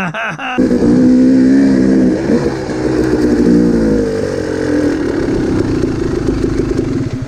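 Dirt bike engine running loud under throttle, cutting in sharply about half a second in, its pitch rising and dipping as the throttle changes.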